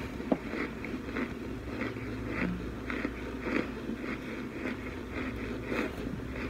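Chewing and crunching frozen baked pot chunks, with crunches about two a second and a sharp click about a third of a second in.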